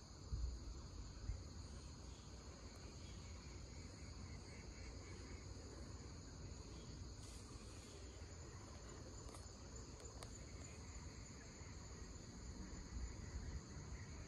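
Steady, high-pitched insect chorus holding two continuous pitches, over a low rumble.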